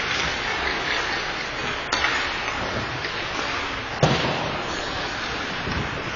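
Ice hockey play in an indoor rink: a steady noise of skates on the ice and hall ambience, with two sharp knocks, the louder one about four seconds in.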